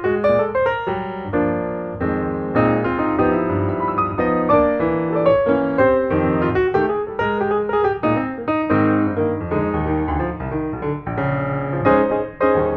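Background piano music, a busy flow of notes with no pause.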